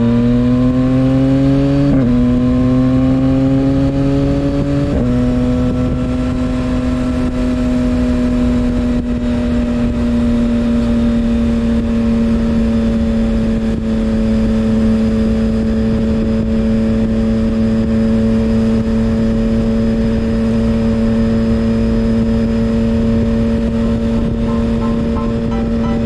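2021 Yamaha MT-09 SP's inline three-cylinder engine through a full M4 aftermarket exhaust, pulling through the gears: the pitch climbs and drops sharply at upshifts about two and five seconds in. It then settles into a steady cruise, heard from the rider's seat.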